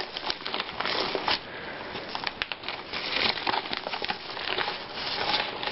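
Sealed Air padded mailer crinkling and rustling as it is handled and opened by hand, with many small crackles.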